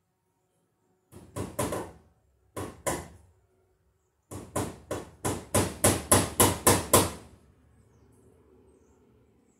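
Hammering: hammer blows on wood, a quick group of about four, two more, then a steady run of about a dozen blows at roughly four a second that grows louder.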